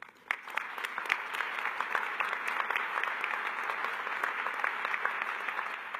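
Crowd applauding: many hands clapping densely and steadily, starting just after the beginning.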